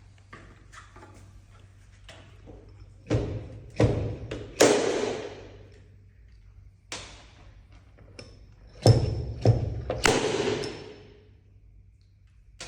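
Paintless dent repair tools striking a car body panel: sharp knocks in two clusters of about three blows each. The biggest blows leave a ringing wash that fades over about a second.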